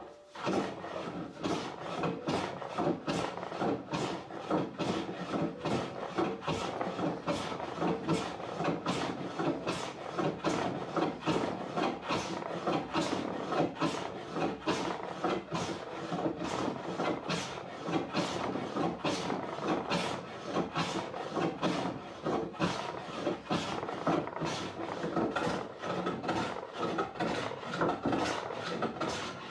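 Wooden door being abraded by hand: a quick run of rasping, rubbing strokes, about two a second, starting abruptly.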